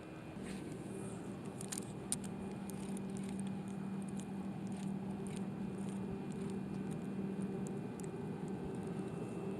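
A spinning reel being cranked in a steady retrieve of a small jerkbait. Its gears make a steady low whir that starts just after the beginning, with light scattered clicks over it.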